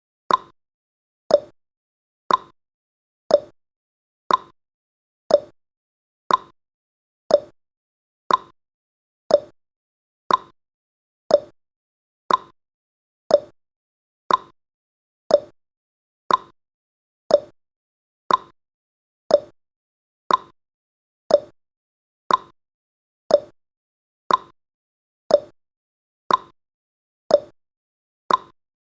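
Countdown timer's ticking sound effect: one short, sharp click each second, dying away quickly, with silence between.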